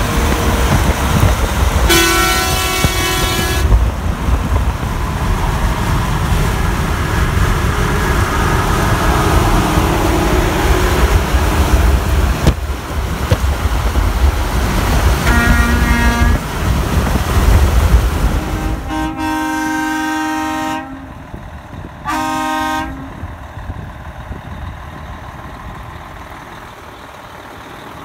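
A series of semi-truck air-horn blasts over highway road and wind noise. First a Freightliner CST120's Hadley air horn sounds for about two seconds, then a Peterbilt 387's Grover air horn for about a second. Near the end, over a much quieter background, come two more air-horn blasts, one of about two seconds and a shorter one.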